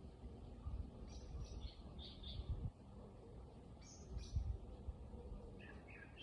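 Small birds giving short high chirps in little clusters, several times, over a faint steady outdoor background, with a few low rumbles that are louder than the calls.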